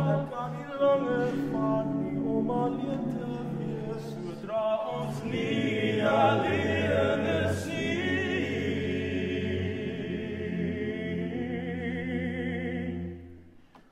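Male a cappella ensemble singing long held chords in close harmony, moving to a new chord about five seconds in. The sound fades away just before the end.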